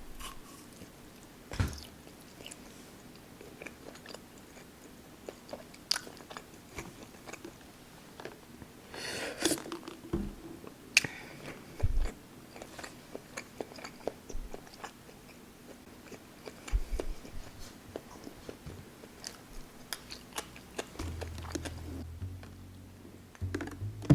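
A person chewing a mouthful of food close to the microphone, with scattered soft clicks, smacks and a few brief crunches. A low hum comes in near the end.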